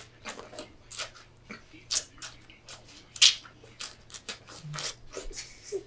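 A person eating noisily: irregular crunching and smacking mouth sounds, over a faint steady hum.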